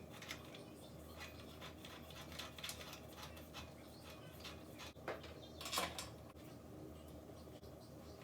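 Faint scattered clicks and rattles of welding-cart parts and hardware being handled during assembly, with two sharper clicks about five and six seconds in.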